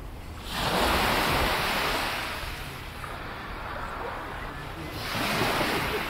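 Calm sea waves washing onto a beach: one surge of surf swells about half a second in and fades over a couple of seconds, and a second one rises near the end.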